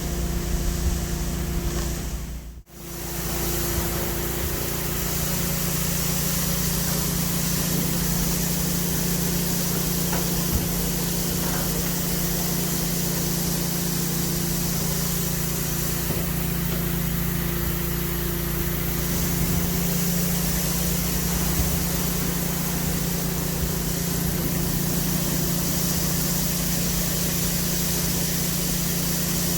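Insulation removal vacuum running steadily: a constant engine-like hum under rushing air. It cuts out briefly about two and a half seconds in, then carries on unchanged.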